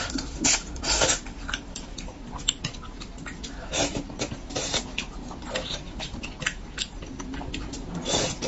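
Close-miked eating sounds of braised fish: wet sucking, smacking and chewing as meat is picked from the bones with chopsticks, with louder slurps about half a second and one second in, again around four seconds, and near the end.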